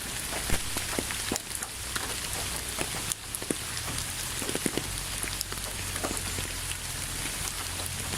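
Steady rain falling, with many individual drops striking close by as sharp taps scattered over the constant hiss.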